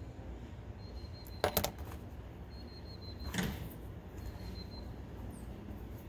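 A knife set down on a tabletop and a soft-plastic bait handled: two quick light clicks about a second and a half in, then a duller knock about two seconds later, over a low steady hum.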